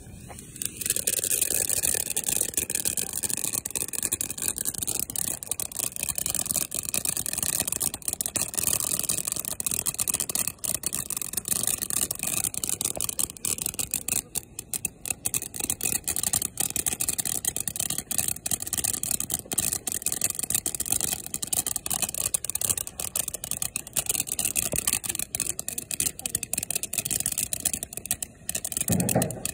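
Ground fountain firework spraying sparks: a steady, loud hiss with dense crackling, starting about a second in.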